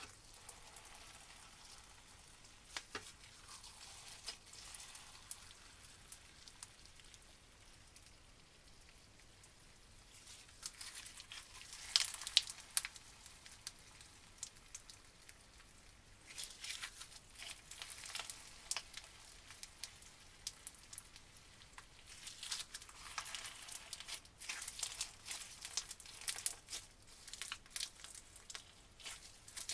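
Clear blue slime packed with crunchy beads being squeezed, stretched and folded by hand: a gritty crackling and popping that comes in dense clusters of sharp clicks, with quieter stretches between.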